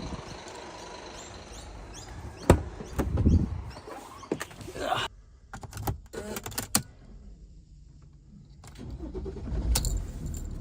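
Vehicle noise beside a parked van, with an engine running that cuts off suddenly about five seconds in. A sharp clunk comes about two and a half seconds in, then a quick run of clicks, and the engine noise builds again near the end.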